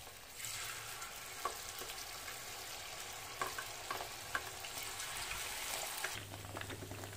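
Flour-battered basa fish pieces sizzling in hot oil in a frying pan as more pieces are dropped in, with a few light clicks. The sizzling falls away about six seconds in, leaving a low hum.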